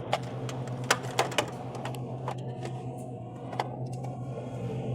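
Scattered sharp clicks and knocks of a vending machine's coin mechanism and parts being handled, over a steady low hum.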